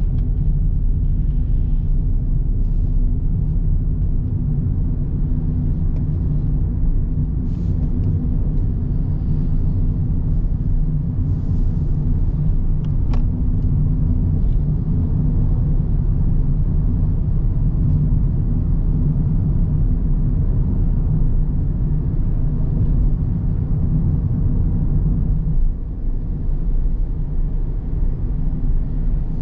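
Car driving along a road: a steady low rumble of engine and tyre noise that eases slightly near the end.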